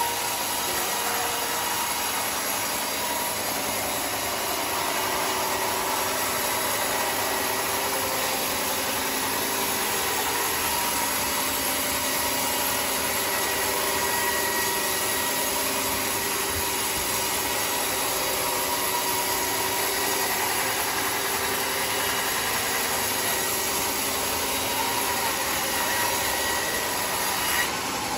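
Homemade sawmill's blade sawing lengthwise through a thick plank of red wood: a steady, unbroken run of motor and blade noise with the rasp of the cut.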